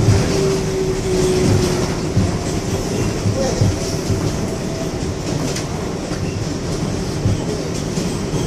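Inside an R142A subway car running at speed on elevated track: a steady rumble with irregular clacks of the wheels over the rail joints.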